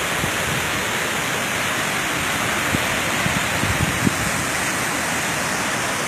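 Tall waterfall plunging down a rock face onto rocks and a pool: a steady, even rush of falling water, with a few soft low thumps about halfway through.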